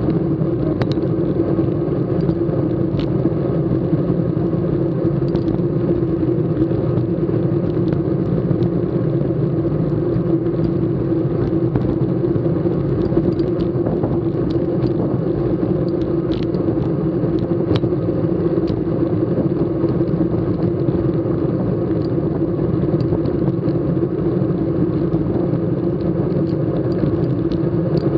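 Steady road and wind rumble from a racing bicycle riding in a bunch of cyclists, as heard by a camera mounted on the bike, with a few faint clicks scattered through.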